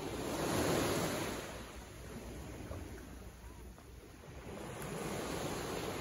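Small waves of a calm sea washing in, two gentle swells of surf, the first just under a second in and the louder, the second about five seconds in.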